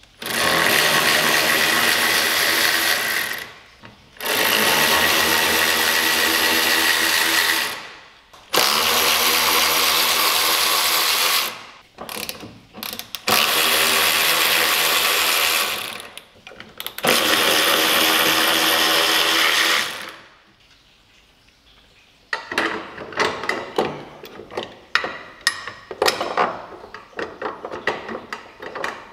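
Cordless power tool with a 12 mm socket running in five bursts of about three seconds each, spinning off the front strut-top nuts. From about 22 seconds in, a run of irregular metallic clicks and knocks as the strut brace is fitted.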